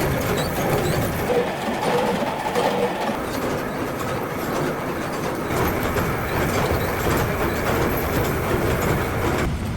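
Ammunition-making machinery running with a loud, continuous mechanical clatter of many rapid small ticks and knocks.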